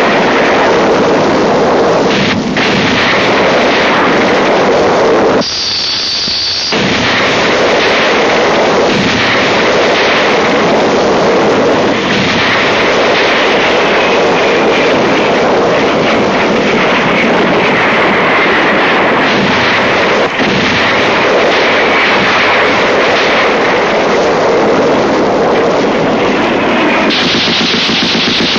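Film battle sound effects of an air strike: dense, continuous machine-gun fire mixed with explosions, loud throughout, with one brief break about five and a half seconds in where a high thin tone is heard instead.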